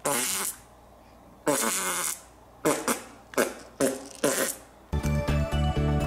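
A run of cartoon fart sound effects, about seven in a row, each a short buzz that falls in pitch, coming closer together toward the end. Background music starts about five seconds in.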